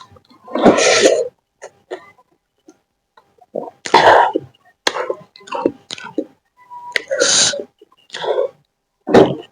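Close-miked eating sounds: mouth noises of biting and chewing food, in about four loud separate bursts with quiet between.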